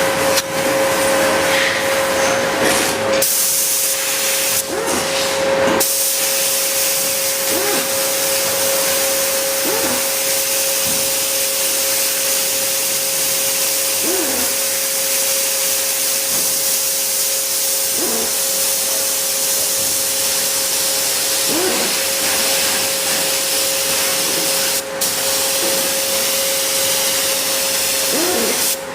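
Bottom-cup pneumatic paint spray gun hissing steadily as compressed air blows through it. The hiss stops briefly twice in the first few seconds, as the trigger is let go, and dips once for a moment about 25 seconds in.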